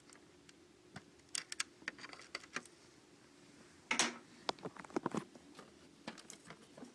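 Small, scattered clicks, taps and scrapes of tweezers and plastic laptop parts being handled as ribbon-cable connectors are worked loose, with one louder scrape about four seconds in. A faint steady hum lies under them.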